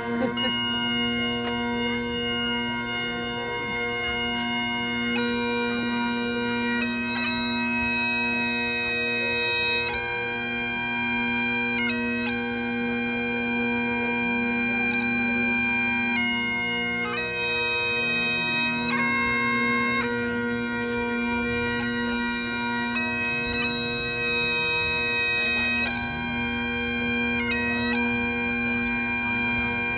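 Great Highland bagpipe playing a melody over its steady, unbroken drones.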